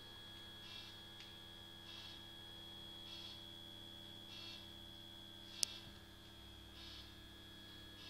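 Faint electrical hum with a steady high whine, and a soft buzzy pulse repeating about every 1.2 seconds. A single sharp click comes a little past halfway.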